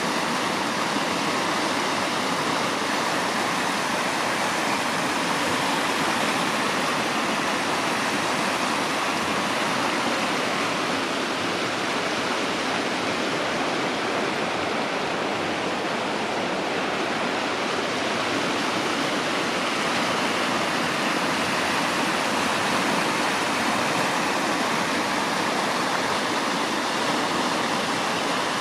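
Steady rushing noise of running water, even and unbroken throughout.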